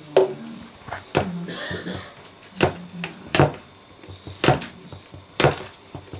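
Briard puppies playing on a tiled floor: a string of sharp knocks and clatters from toys and paws striking the tiles, about one every second, with short low puppy growls between the early knocks.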